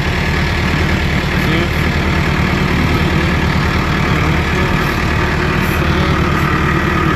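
Tractor engine running steadily under light load, a low, even drone.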